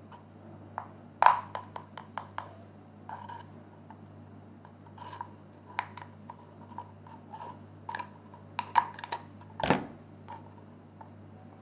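Scattered light clicks and taps of a teaspoon and plastic containers being handled, with a sharper click about a second in and a heavier knock near the end.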